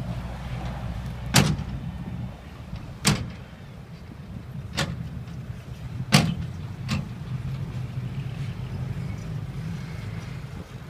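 Heavy diesel dump-truck engines running low and steady, with five sharp metallic knocks spaced a second or two apart during the first two-thirds.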